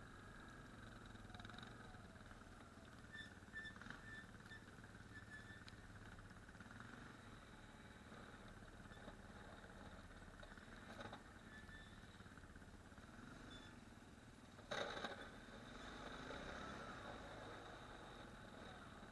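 ATV engine running faintly and steadily, with a few small clicks and one sharp knock about fifteen seconds in.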